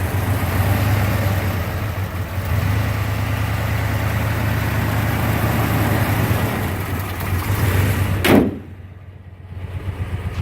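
1989 Jeep Grand Wagoneer's new engine idling steadily and quietly, a low even hum. Near the end a sudden loud thump, after which the sound drops much quieter.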